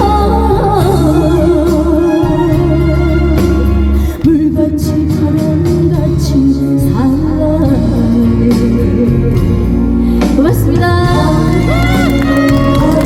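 Live trot song: a woman singing with wavering vibrato over loud amplified backing music with a steady bass.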